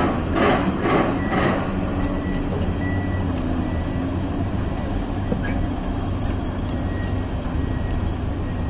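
Crawler crane's diesel engine running steadily with a low drone. For about the first second and a half a rhythmic pulsing noise, about twice a second, rides over it and then stops.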